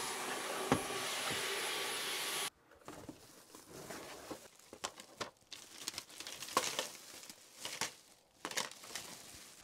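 Cordless stick vacuum running with a steady hiss, switched off suddenly about two and a half seconds in. Then plastic packaging crinkling and rustling as plastic-wrapped shoe storage panels are unpacked from a cardboard box.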